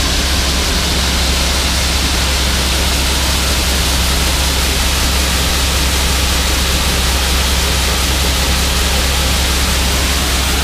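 New Holland combine running with its unloading auger engaged, pouring soybeans into a grain wagon: a steady, loud rush of noise over a low engine drone.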